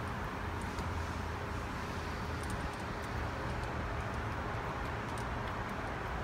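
Steady workshop background hum with a faint constant tone, and a few faint light clicks.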